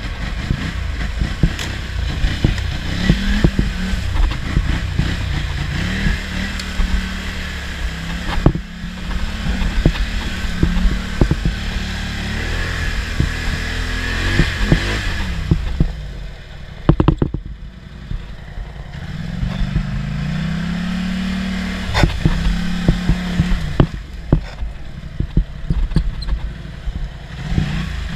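Polaris ATV engine revving up and down as the quad is ridden through mud and over rough ground, with repeated clattering knocks from the machine. The engine drops off briefly around the middle, then revs up again.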